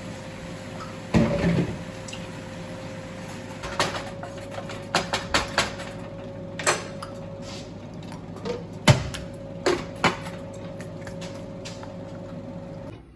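Kitchen clatter while cooking: scattered knocks and clicks of pots, lids and utensils, the loudest about a second in and about nine seconds in, over a steady hum that cuts off just before the end.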